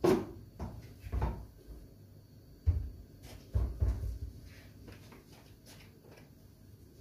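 Several knocks and thuds of things being handled in a kitchen, about six of them spread over the first four seconds, the loudest at the very start, then quieter.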